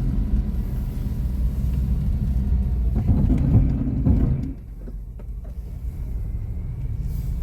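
Honda N-BOX Slash on studless tyres driving on a snowy road: a steady low rumble of road and tyre noise. It swells about three seconds in, then drops to a quieter level about four and a half seconds in.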